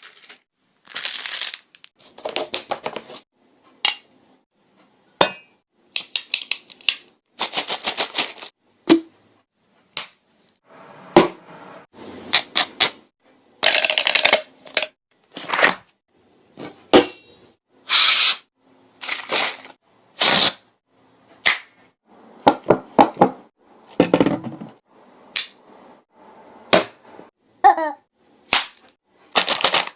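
A string of mouth-made sound effects: sharp clicks and pops alternating with short hissy, noisy bursts, separated by brief silences.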